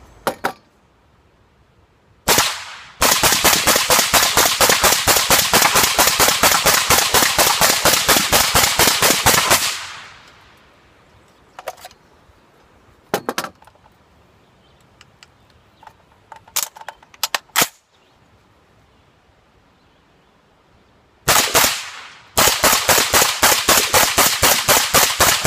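Suppressed AR-15 rifle fired rapidly. One shot is followed by a long, even string of about six shots a second lasting several seconds. A few scattered single shots come next, then another fast string near the end.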